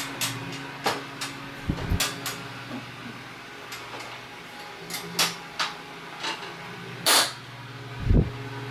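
Side panel of a Corsair Vengeance C70 PC case being fitted back on: a series of sharp clicks and knocks, a longer scraping slide about seven seconds in, and a low thump just after as it seats.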